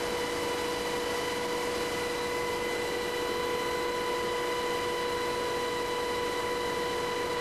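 Steady cabin noise inside an HH-60G Pave Hawk helicopter in flight: a constant rushing with a steady whine of several high pitched tones over it.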